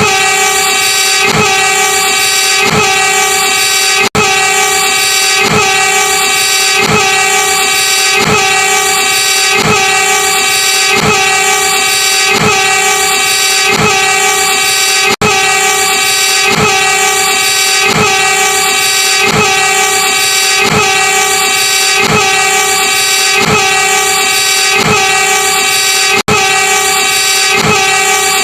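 Multi-tone horn of a railway track-recording train held on continuously as one loud chord, with a regular low knock about every 0.7 seconds underneath. The sound briefly cuts out about every 11 seconds.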